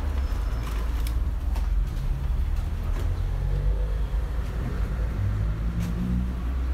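A steady low mechanical rumble with a few light clicks, under the faint rubbing of a soapy wash mitt being worked over a car's wheel and bonnet.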